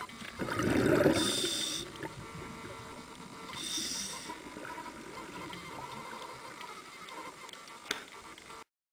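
Scuba diver's regulator breathing heard underwater: a rush of exhaled bubbles starting about half a second in, and two short hissing inhalations, one just after a second in and one around four seconds in.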